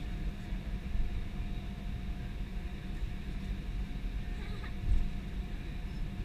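Cabin noise of an Airbus A320 taxiing: a steady low rumble from the idling engines and rolling gear, with a faint steady hum over it. A brief louder thump about five seconds in.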